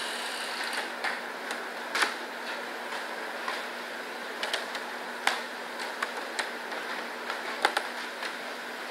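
Steady background hiss with scattered sharp clicks and ticks at irregular intervals, the sharpest about two, five and seven and a half seconds in.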